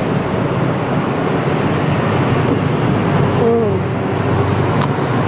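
Steady background noise: a continuous hum and hiss, with a brief voiced sound about three and a half seconds in.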